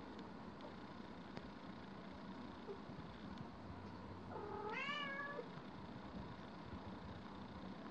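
A single animal call about halfway through, about a second long, rising then falling in pitch, over a steady low background hiss.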